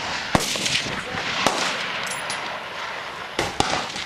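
Rifle shots fired one at a time, four in all: one just after the start, one about a second and a half in, then two in quick succession near the end. Each crack is followed by a rolling echo.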